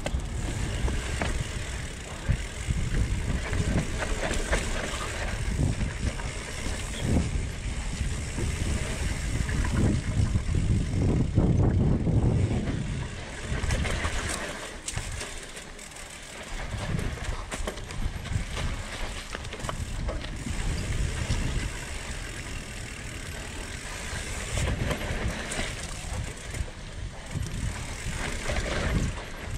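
Mountain bike riding down a steep dirt downhill trail: wind buffeting the microphone, tyres crunching over dirt, and the bike's chain and frame rattling and knocking over bumps. The noise eases for a moment about halfway through.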